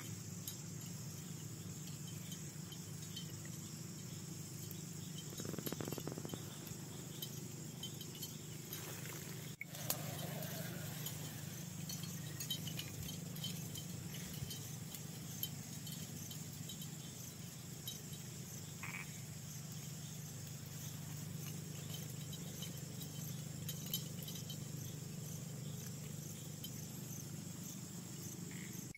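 Night chorus of frogs and insects calling steadily, with a continuous high chirping.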